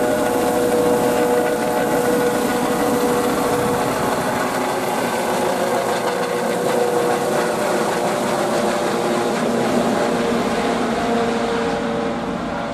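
Police helicopter taking off and climbing low overhead: a steady turbine whine over the rotor noise, fading near the end as it moves away.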